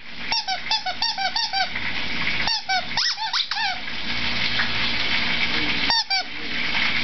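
Rubber squeaky dog toy squeezed over and over in quick runs of short squeaks, in three bouts: through the first second and a half, around three seconds in, and once more near the end. A steady sizzle of food frying runs underneath.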